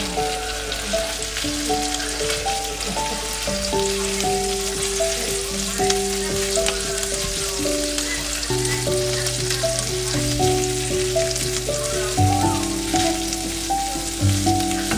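Food frying in a pan, a steady sizzling hiss with fine crackles, under background music with a simple melody.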